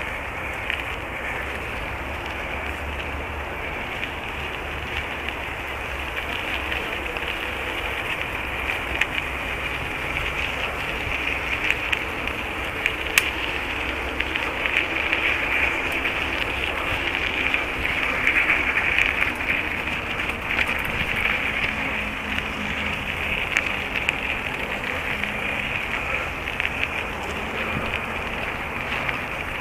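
Bicycle rolling along a dirt trail: a steady rush of tyres on packed earth and leaves, with scattered small clicks and rattles.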